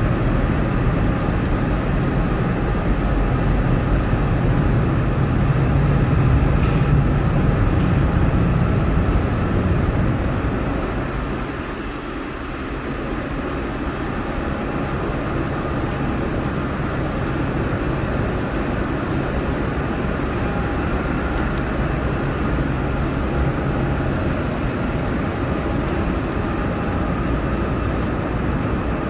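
Steady low rumble of airport engine noise with a faint steady whine over it, easing briefly about twelve seconds in.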